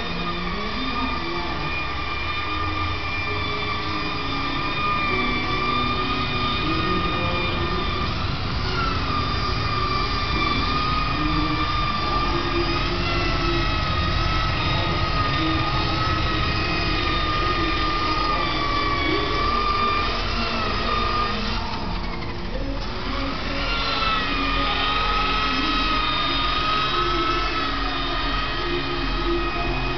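Electric car polisher running with a steady motor whine over a low rumble; about three quarters of the way through the pitch sags and climbs back.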